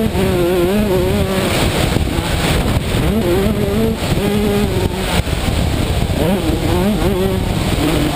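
85cc two-stroke motocross bike engine under hard throttle, its pitch holding high, dipping and climbing again several times as the rider shifts and rolls the throttle off and on, with wind rushing over a helmet-mounted microphone.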